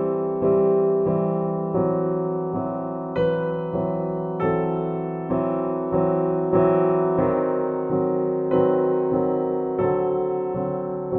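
Slow, gentle piano music, sustained chords restruck about every second, each note fading out.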